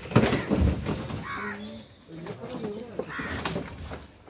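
A loud burst of noise in the first second, then a crow cawing and men's voices calling out in the background.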